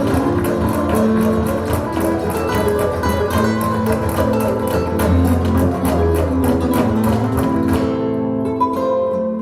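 Instrumental flamenco-style music, led by plucked acoustic guitar over a strong bass line and a busy rhythm of sharp strikes that drops away about eight seconds in. It is played back through B&W 706 S2 speakers driven by a Luxman L-505uX II integrated amplifier.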